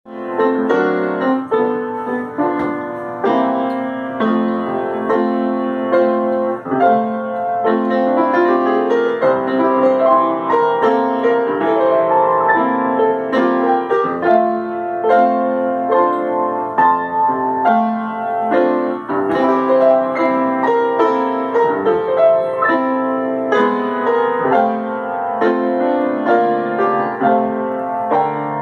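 Small upright piano played solo: a gospel song in chords with a melody on top, with a rising run of notes about eight seconds in.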